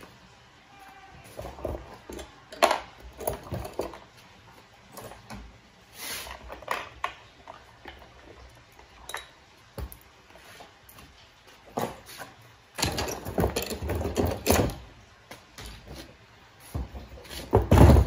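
Irregular knocks, clicks and clatter of a Consul washing machine's parts being handled and taken apart by hand. There is a busier stretch of rattling about two-thirds of the way in and a loud knock near the end.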